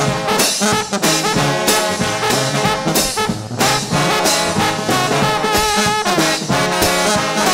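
Trombone shout band playing: massed trombones and other brass sounding full harmonies over a steady beat of about two strikes a second.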